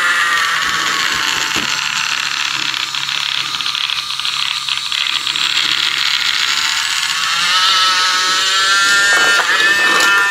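Battery-powered wooden-railway toy train's small electric motor and gears whining. The pitch falls as the train slows on the bridge ramp, stays low and rough in the middle and rises again near the end as it speeds up, with a few clicks near the end.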